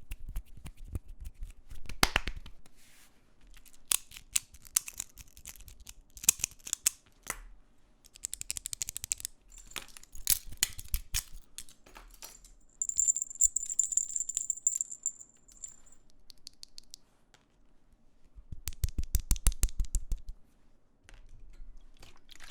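Hands working with small plastic keyboard parts: scattered clicks, rattles and scratchy rustling. There is a short high hiss about halfway through and a quick run of clicks near the end.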